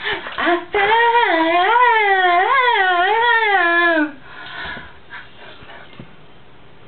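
A young woman singing unaccompanied, holding one long note that wavers up and down in a run for about three seconds before breaking off.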